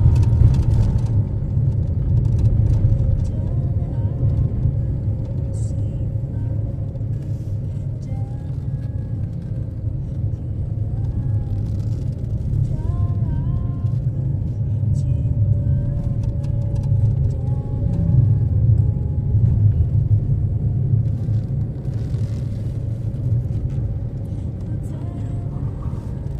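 Suzuki Karimun Wagon R driving along a road: a steady low rumble of engine and tyre noise.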